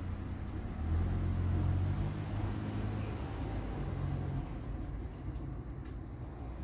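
A motor vehicle's engine running low and steady, louder from about a second in and easing off after about four seconds, as when a vehicle passes.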